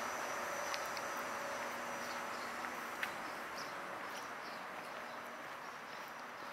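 Steady outdoor background noise, a hiss-like haze that slowly fades, with a few faint clicks and small chirps.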